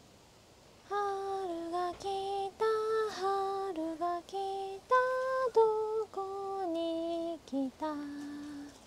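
A woman singing a slow tune on her own, unaccompanied, in long held notes, starting about a second in.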